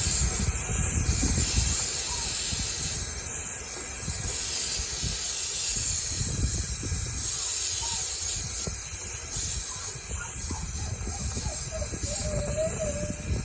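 Steady hissing rush of air with a fluctuating low rumble underneath, like air blowing hard past the microphone.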